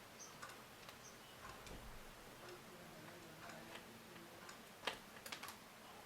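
Faint, irregular small clicks and ticks of a screwdriver working out the tiny screws that hold a laptop's LCD panel, with one sharper click about five seconds in.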